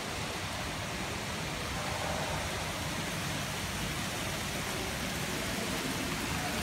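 Small tiered fountain splashing, heard as a steady, even rushing noise.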